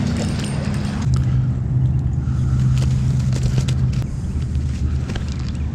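A motor running with a steady low hum that drops to a lower pitch about a second in, with light clicks over it.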